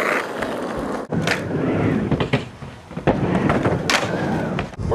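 Skateboard wheels rolling on concrete and ramp surfaces, broken by several sharp clacks of the board hitting the ground (pops and landings).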